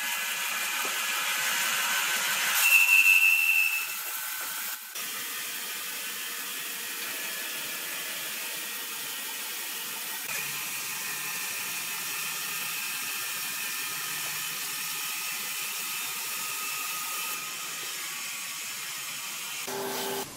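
Horizontal band sawmill cutting a large squared timber block: a steady high hiss of the blade through the wood, with a brief, loud, high whine about three seconds in.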